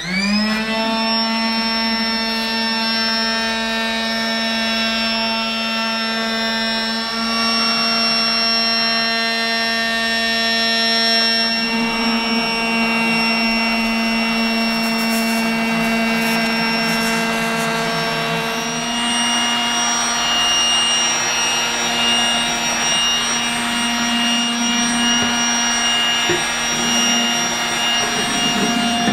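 Casdon toy Dyson V8 cordless vacuum's small battery motor switched on, spinning up with a short rising whine, then running steadily with a high whine. Its tone shifts slightly about two-thirds of the way through.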